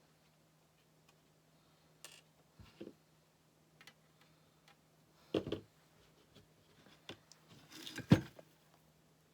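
Handling noise from working with a metal sign and craft tools: a few scattered clicks and knocks, the loudest near the end, over a faint steady low hum.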